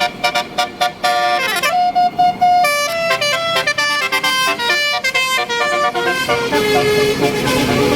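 Tour bus 'telolet basuri' multi-tone air horn playing a melody: a quick run of short notes, a held note about two seconds in, then more shifting notes.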